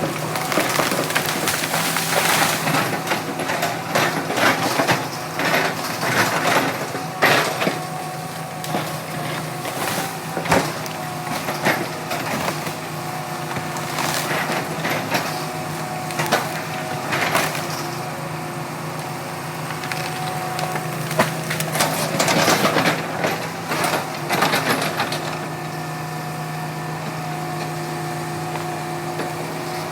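Hitachi excavator's diesel engine running steadily under load, with repeated sharp cracks and crunches of breaking wood, thickest in the first half and again a little past the middle.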